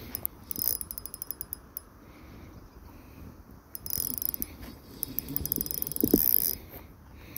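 Fishing reel clicking in a quick run of evenly spaced clicks, then buzzing in two later bursts, as a hooked carp is played on a light rod.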